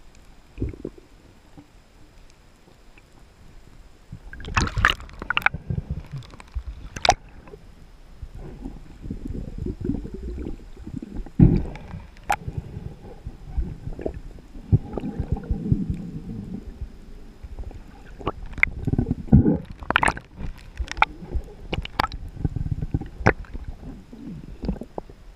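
Underwater water noise: uneven low rumbling and gurgling from movement through the water, with scattered sharp clicks and knocks.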